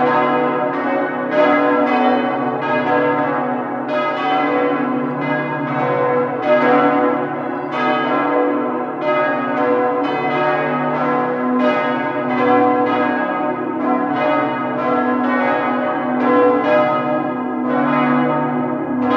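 Church bells pealing: several bells struck one after another, about two strikes a second, each ringing on into the next in a continuous overlapping peal.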